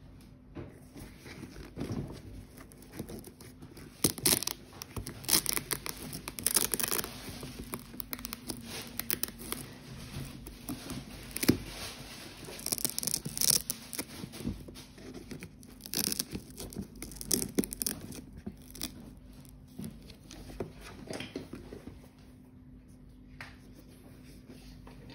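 Irregular rustling, crinkling and tapping from hands handling leather sneakers and their paper stuffing, in uneven spells with louder patches. A faint steady low hum runs underneath.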